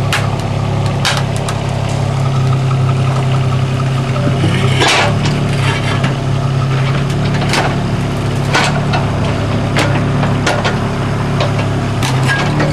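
Mini excavator's diesel engine running steadily as its bucket digs around an old fence post, with scattered knocks and cracks from the bucket against soil, stone and wood. The engine note dips briefly about five seconds in.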